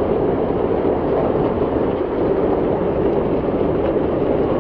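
Heavy hailstorm: hailstones and rain pelting the pavement in a steady, dense rush of noise.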